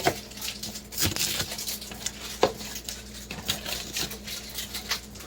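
Knife chopping lettuce on a cutting board: an uneven series of sharp knocks as the blade strikes the board.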